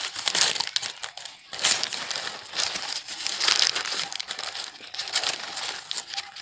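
Close-up chewing of a mouthful of lamb doner kebab wrap, mixed with crinkling of its paper wrapper. It comes as an irregular run of soft crackles and small clicks, with a brief lull about one and a half seconds in.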